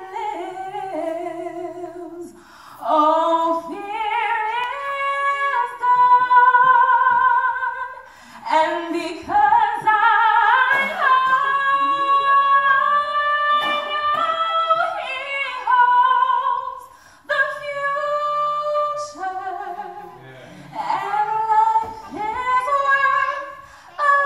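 A woman singing a church solo into a handheld microphone, in long phrases of held notes with wide vibrato and short breaks for breath between them.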